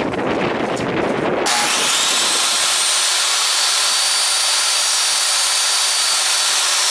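Jobsite table saw switched on about a second and a half in, its whine rising to speed and then running steadily as a wooden block is pushed on edge into the blade for a shallow ripping pass. Before it starts there is rubbing and handling noise of the wood on the saw table.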